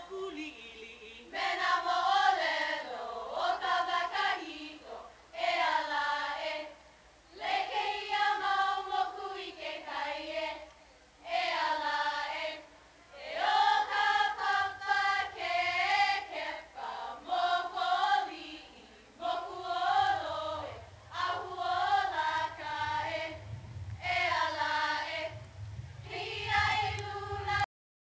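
A group of voices chanting a Hawaiian hula kahiko mele in unison, in sung phrases with short pauses for breath between them.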